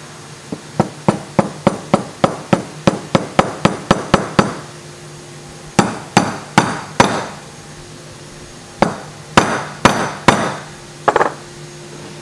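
A small mallet tapping a linear plain bearing into its bore in an aluminium mold plate. It starts with a quick run of about fifteen taps, some four a second, then comes two slower clusters of strikes and a last strike near the end.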